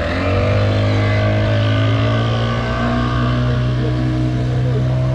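Yamaha outboard motor on a passenger boat, throttling up as the boat pulls away: the pitch rises slightly at first, then the engine runs steadily.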